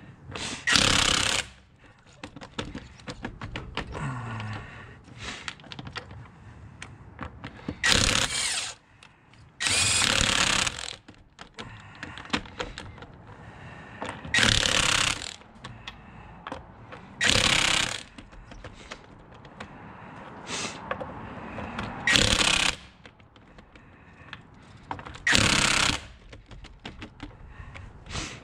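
Cordless power tool driving lug nuts onto a car wheel: about eight short bursts of spinning and hammering, a second or less each, with small metal clinks of sockets and nuts in between.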